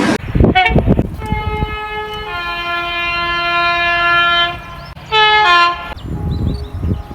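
Train horn sounding: a brief toot, then a long blast where a second, lower note joins the first to make a two-note chord, then a short two-note blast near the end. Train rumble comes before and after the horn.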